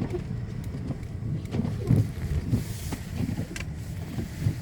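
A car's low running rumble of engine and tyres, heard from inside the cabin while driving, with a few light clicks and knocks and a brief hiss about halfway through.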